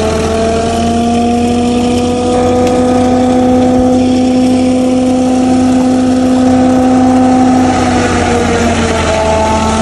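Massey Ferguson 240 tractor's three-cylinder diesel powering a tractor-mounted maize silage chopper. It gives a loud, steady whine over the engine's drone, and the pitch sags slightly near the end.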